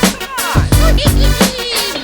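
Background music with a steady beat: electronic dance track with heavy bass and gliding synth sweeps.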